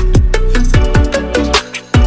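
Background music with a fast, steady kick-drum beat and heavy bass; the bass drops out briefly just before the end, and the beat hits again on the next downbeat.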